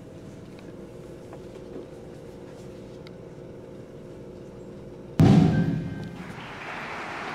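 A low steady hum with a few faint clicks, then about five seconds in a concert band comes in suddenly with a loud low hit that dies away into continuing band music.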